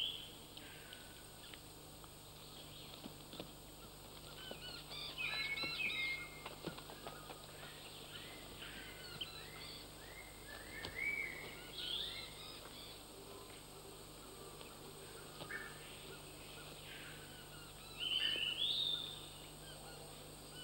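Forest ambience of short, high-pitched chirping animal calls, scattered through and louder in clusters about five, eleven and eighteen seconds in, over a faint steady hum.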